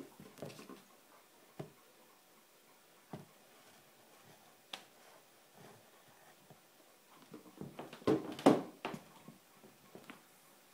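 Sneaker soles stepping on a hardwood floor and a cardboard shoebox being handled and set down. A few scattered knocks, then a louder cluster of thumps about eight seconds in.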